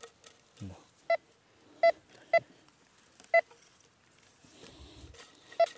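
Metal detector giving short, high beeps, five of them at uneven intervals, as its search coil is swept over a buried metal target, signalling metal in the ground.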